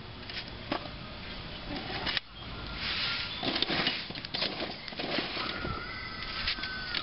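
Burning charcoal crackling and hissing in a grill as sparks fly up from the coals. A thin steady high tone sounds briefly twice.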